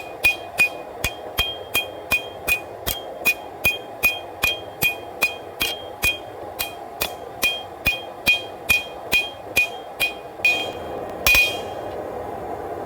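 Hand hammer striking a hot W-2 steel bar on an anvil, about two and a half blows a second, each blow with a metallic ring. The blows close up the end of the bar to keep it from fish-mouthing. They stop near the end after one last heavier strike, leaving a steady rush.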